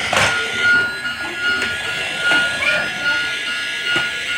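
Small battery-powered toy motor whining steadily as the remote-control toy runs, with a few clicks and knocks of the plastic toy.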